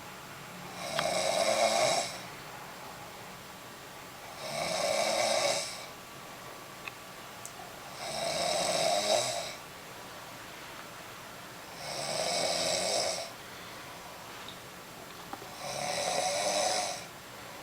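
A woman snoring loudly in deep sleep: five long snores, evenly spaced about four seconds apart, with quieter breathing between them.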